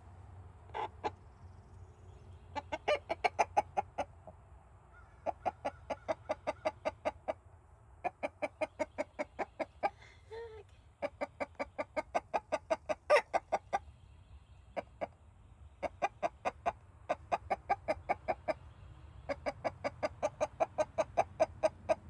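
Rooster snoring: rapid trains of short clucking pulses, about seven a second, in bouts of one and a half to three seconds that repeat with short pauses.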